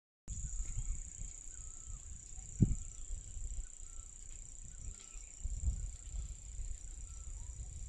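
Forest ambience: a steady high-pitched insect drone with faint short bird calls repeating over it, and low wind rumble on the phone's microphone. A single thump about two and a half seconds in is the loudest sound.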